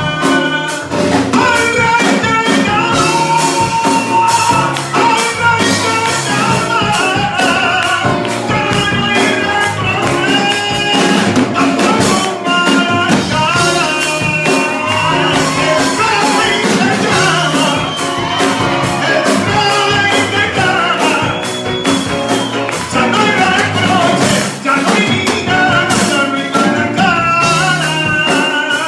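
Live church worship music: a man sings into a microphone over loud amplified band accompaniment with a steady beat and busy percussion.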